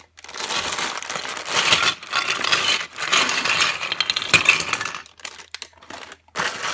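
Clear plastic bag crinkling as it is shaken, with LEGO Duplo bricks clattering out onto a wooden floor; a sharp knock of a brick landing about four seconds in, then a few light clicks.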